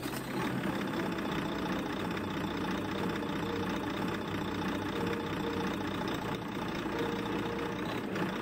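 Heavy truck's diesel engine idling, a steady, even running sound.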